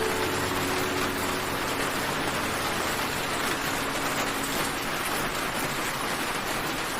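Steady rain falling, an even, unbroken hiss of drops with no single drop standing out.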